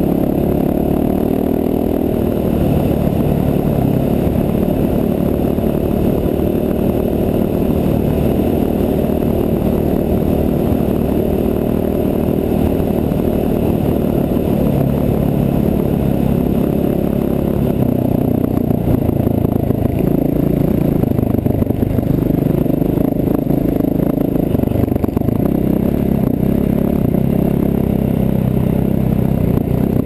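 Dual-sport motorcycle engine running steadily under throttle, its pitch shifting a little, with tyre and gravel noise from a rough dirt road.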